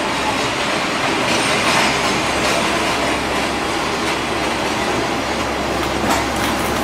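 Running noise of a KiHa 47 diesel railcar: wheels rumbling on the rails with some wheel squeal, a steady dense noise throughout.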